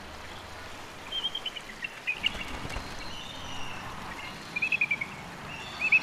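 Bald eagle calling: quick runs of high, piping chitter notes, a few brief ones early on and louder runs near the end. A steady hiss of outdoor ambience runs underneath.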